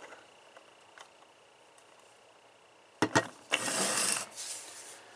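Handling noise: a few sharp clicks about three seconds in, then about a second of high, hissy rustling that fades away.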